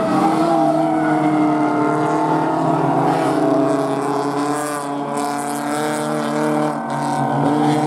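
Engines of several BMW E36 rallycross cars running hard together through a corner, their notes overlapping and shifting in pitch as the drivers get on and off the throttle.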